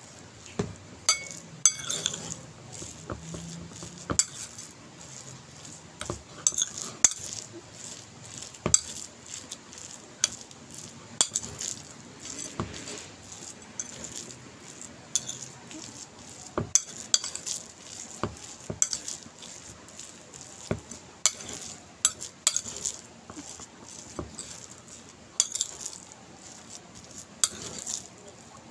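Metal spoon stirring and scraping a thick, damp oat batter in a ceramic bowl, with frequent irregular clinks as the spoon strikes the bowl.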